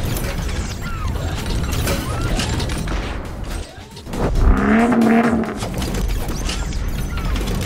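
Animated-intro sound design: a loud music bed with a heavy low pulse and mechanical clatter, as if car parts are snapping into place. The sound dips briefly just before the middle, then a sustained pitched tone swells for about a second.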